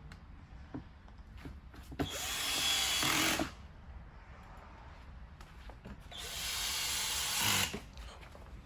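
Cordless drill-driver driving small screws into plastic body panels: two runs of about a second and a half each, both stopping suddenly, with light clicks of handling between them.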